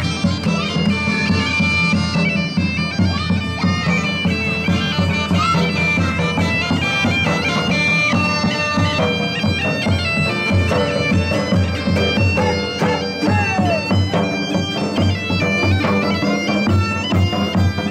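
Bagpipes playing a tune over steady drones.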